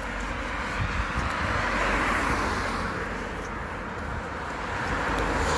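Road traffic passing on the street: the tyre and engine noise of a car swells to a peak about two seconds in and fades, then another vehicle's noise rises near the end.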